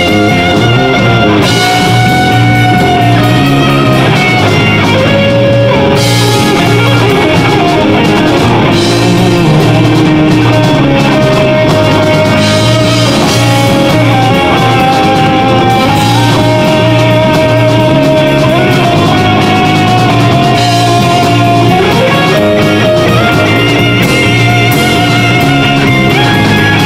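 Live progressive metal band playing: two electric guitars, bass guitar and drum kit, with a lead guitar line of long held notes that step from pitch to pitch over a steady low rhythm.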